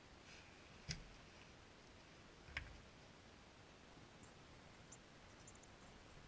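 Near silence with two faint, sharp clicks, each with a dull knock under it, about a second and a half apart.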